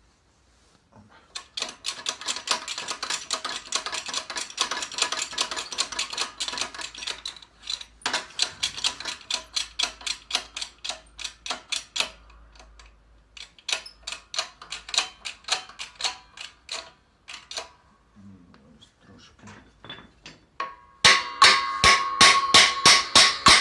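Ratchet wrench clicking rapidly in runs as it turns the screw of a press, forcing a rubber-metal silent block into a Skoda Octavia A5 front control arm. There are short pauses where the handle is reset, and the clicks are loudest and ring slightly near the end.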